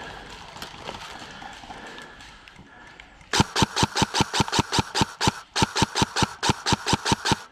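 An airsoft gun firing two quick strings of shots, about seven or eight sharp clacks a second, starting about three seconds in. There is a brief pause between the two strings, and the firing stops just before the end.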